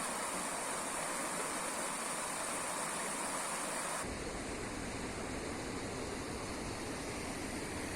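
Rushing river water, a steady noise. About four seconds in it changes abruptly to a deeper, more rumbling rush.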